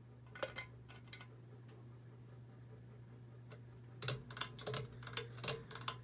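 Pull-chain switch on a Dynasty hugger ceiling fan clicking as its chain is pulled: a few sharp clicks about half a second in, then a quick run of clicks and chain rattle from about four seconds. A steady low hum from the running fan motor lies underneath.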